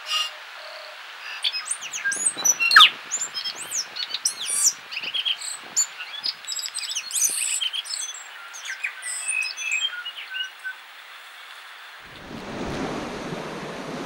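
Tui singing: a varied run of quick whistles, clicks and sharp gliding notes. About twelve seconds in it gives way to waves washing on a beach and wind on the microphone.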